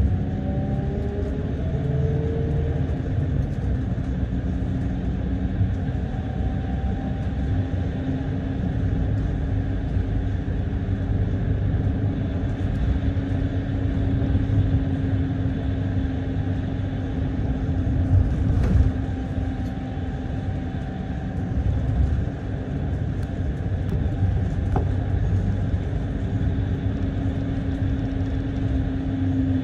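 A bus in motion, heard from on board: a steady rumble of engine and road with a low steady hum, and a rising whine in the first few seconds. A single knock about 19 seconds in.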